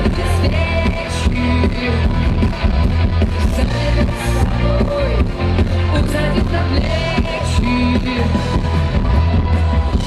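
Live rock band playing through a big outdoor PA with heavy bass, a woman's sung vocal coming in and out over it.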